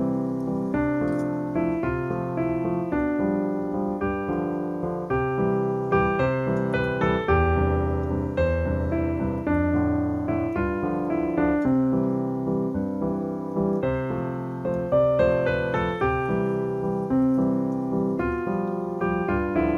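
Background piano music: a steady stream of notes in a repeating, rhythmic pattern.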